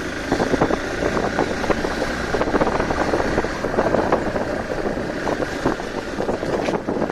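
Hero Xpulse 200 4V motorcycle's single-cylinder engine running as the bike rides over a broken, gravelly road, with wind on the microphone and many short knocks and rattles from the bumps.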